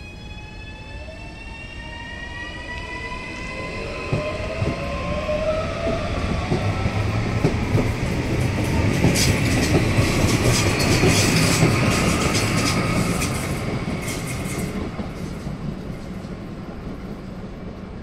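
CAF S200 electric multiple unit pulling away: a whine of several tones climbs in pitch as it accelerates, then the cars pass close with wheels clattering over the rail joints, loudest around ten seconds in, and the sound fades as the train draws away.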